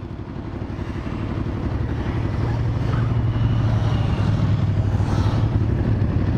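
Aprilia Caponord 1200 Rally's V-twin engine idling steadily close to the microphone, fading in over the first couple of seconds.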